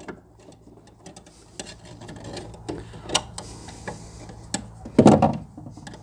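Light clicks, taps and scrapes of wire and hand tools being worked inside a metal electrical sub panel, over a faint low steady hum. A brief low vocal sound comes about five seconds in.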